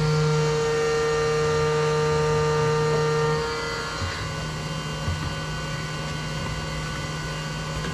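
CNC milling machine running, cutting an intercooler adapter flange: a steady hum made of several fixed tones. About three and a half seconds in, the strongest tones drop away and it runs a little quieter.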